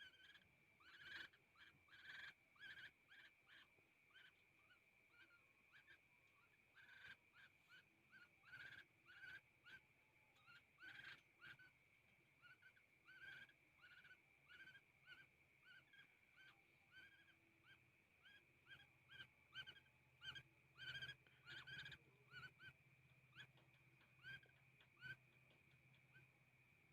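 Young, still hand-fed woodpecker calling over and over: faint, short chirping calls at about two a second, with a steady faint high tone behind them.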